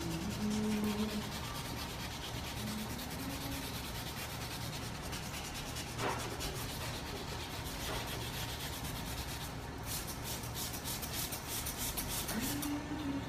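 Wet sanding by hand: sandpaper on a small pad rubbing back and forth over a painted car bumper in quick, steady strokes. Toward the end a quick series of spritzes from a trigger spray bottle wets the surface.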